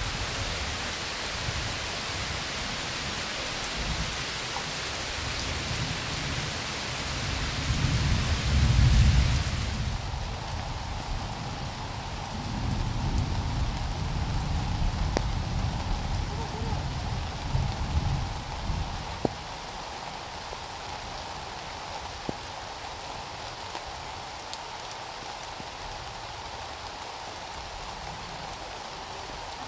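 Heavy rain pouring steadily, with rolling thunder rumbling low, loudest about nine seconds in and again from about twelve to nineteen seconds in. The rain's hiss changes abruptly about ten seconds in, and a few sharp ticks of dripping water come later.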